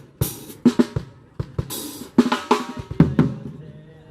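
Drum kit played in a sound check: scattered snare and kick drum strokes with cymbal crashes, thinning out and dying away near the end.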